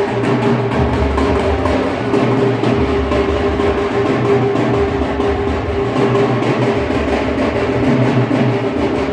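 Music with a fast, steady drum beat over a held tone and a low bass line that changes note every second or so.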